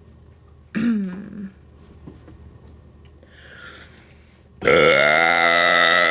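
A woman belching on purpose: a brief vocal sound with a falling pitch about a second in, then a long, loud belch at a steady pitch that starts near the end and carries on.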